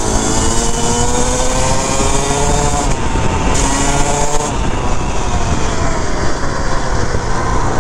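Suzuki RM250 two-stroke dirt bike engine pulling hard, its pitch climbing, dropping at a gear change about three seconds in, then climbing again before holding steadier. Heavy wind rush on the helmet microphone runs underneath.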